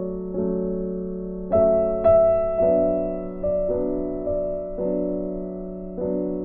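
Background music: soft piano playing slow notes that strike and fade, over a held low note.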